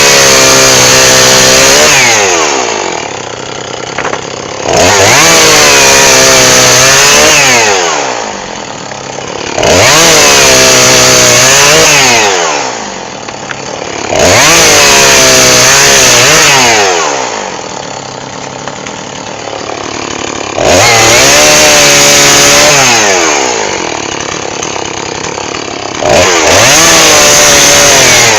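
Chainsaw bucking firewood: the two-stroke engine revs to full throttle in about six bursts of two to three seconds, the pitch sagging and recovering during each cut, then falls back toward idle between cuts.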